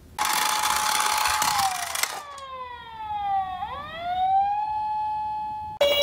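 Wailing siren of a toy ambulance. It holds a steady tone for about two seconds, with a hiss over it, then slides down in pitch and winds back up to the same note. Near the end it cuts off abruptly and a different electronic tune takes over.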